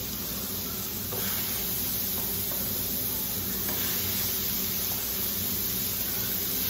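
Raw ground-beef patties sizzling on a hot electric griddle. The sizzle gets louder about a second in and again near four seconds, as more patties are laid down on the hot surface.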